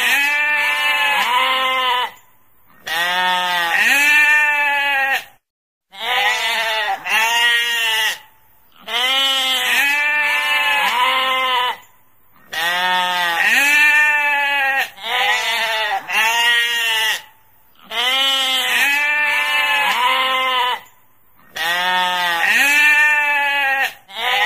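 Sheep bleating over and over: long, quavering bleats a few seconds each, with short gaps between them. The same run of bleats repeats about every nine seconds.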